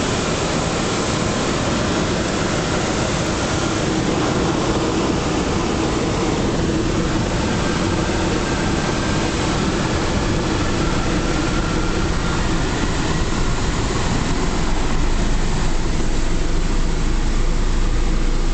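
Loud, steady rush of air over the canopy of an engineless Schleicher ASK 13 glider, heard from inside the cockpit during a low pass. A faint whistle runs through it, and the rush grows a little louder near the end.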